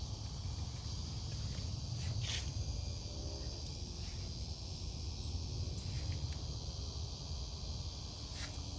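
Steady evening chorus of insects, such as crickets, trilling without pause at a high pitch. A low steady rumble runs underneath, with two short rustles, one about two seconds in and one near the end.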